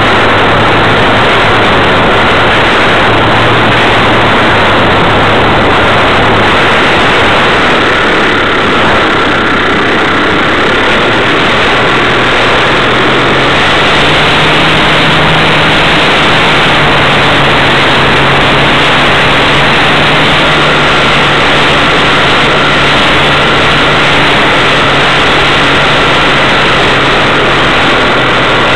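Loud, steady engine drone and rushing air from a Wilga aircraft in flight, picked up by an onboard camera. The low engine note shifts a few times, as around six and thirteen seconds in.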